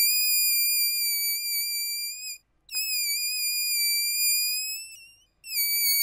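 The 'REEEEE' meme screech sound effect, standing in for a cartoon character's scream: a very high-pitched, slightly wavering screech held for over two seconds at a time, cut off and restarted twice, at about two and a half and five seconds in.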